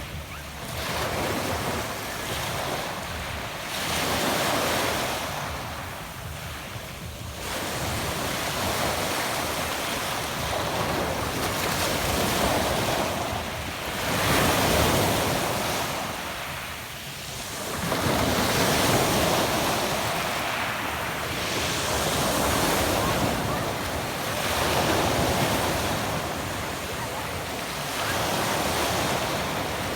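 Adriatic Sea waves washing onto a pebble beach, swelling and drawing back every few seconds.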